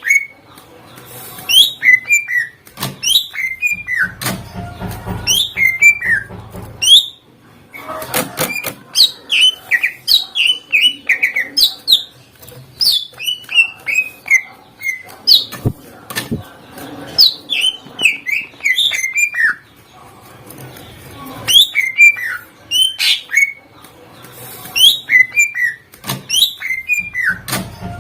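Greater green leafbird (cucak ijo) singing loudly. Its phrases are rapid runs of sharp, mostly falling whistled notes, repeated one after another with brief pauses between them.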